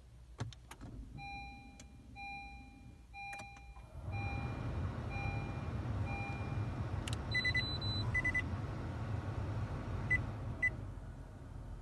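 Inside a car: two clicks, then a dashboard chime beeping about once a second. About four seconds in a steady low rumble starts and the chime fades away. Later a short electronic tone pattern and two short beeps sound as the Gathers head unit boots up.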